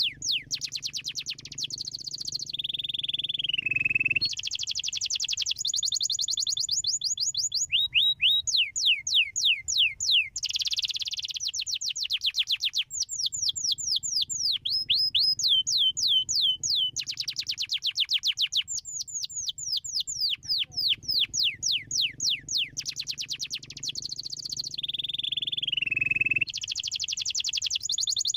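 Domestic canary singing a continuous fast song: rapid trills made of runs of repeated sweeping notes, changing from one run to the next, broken twice by a slower falling whistle. A faint low hum sits under some passages.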